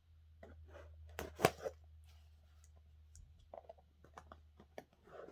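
Packaging being handled while a heavy PA speaker is unpacked: a run of short crinkles, rustles and knocks, the loudest about a second and a half in. A low steady hum runs underneath and fades out shortly before the end.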